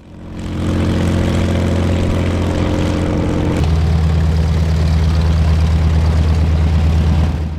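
Propeller aircraft piston engine running steadily, fading in at the start; about halfway through the engine note changes and drops slightly lower.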